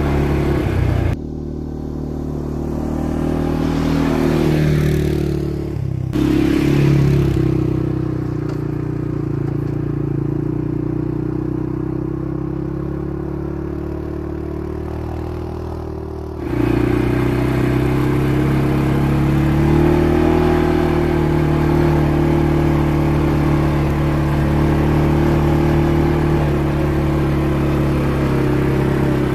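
A CFMoto CForce 500 ATV's single-cylinder engine running as the quad drives the trail. About a second in, the sound switches to a quieter, more distant engine that swells and shifts in pitch for a few seconds. Near sixteen seconds it cuts back to the close, steady running.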